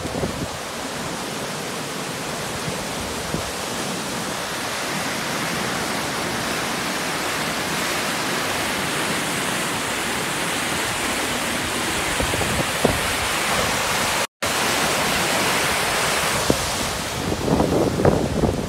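Flash-flooded Honokohau Stream rushing as a steady, dense roar of water, swollen by Hurricane Lane's rain. The sound cuts out for an instant about two-thirds of the way through, and gusts of wind buffet the microphone near the end.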